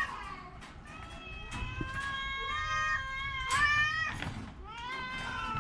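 Domestic cat meowing: a long drawn-out meow that wavers in pitch through the middle, then another shorter call near the end.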